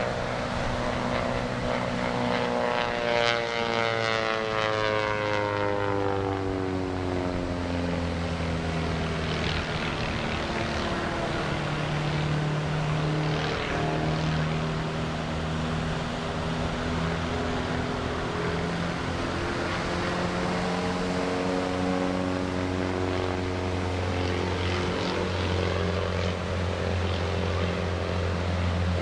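Pitts aerobatic biplane's piston engine and propeller droning during aerobatic manoeuvres. The pitch slides down over several seconds early on, then climbs again past the middle.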